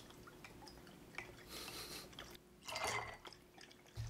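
Lemon juice squeezed from an upturned plastic squeeze bottle and splashing into a glass, in two short spells, the second louder, about three seconds in.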